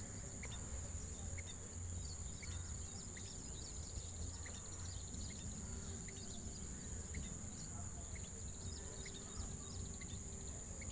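Scaly-breasted munias giving short, high chirps, scattered every second or so, over a steady high-pitched insect drone and a low background rumble.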